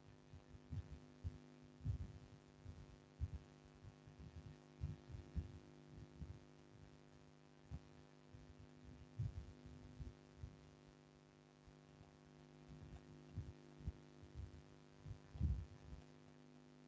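Faint steady electrical hum under irregular soft low thuds and bumps as a stylus writes on an interactive board, the strongest thud near the end.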